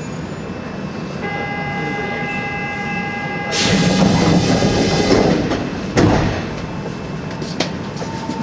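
Door-closing sequence on a stopped Osaka Metro 70 series subway train: a steady warning tone of several held notes sounds for about two seconds, then the doors slide shut with a loud rush of noise, ending in a sharp clunk about six seconds in and a lighter click shortly after.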